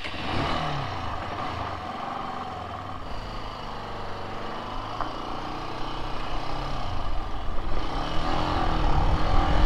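Benelli BN 125's single-cylinder engine pulling away and accelerating, its pitch rising and falling as it goes through the gears, with wind rumble on the microphone growing louder near the end.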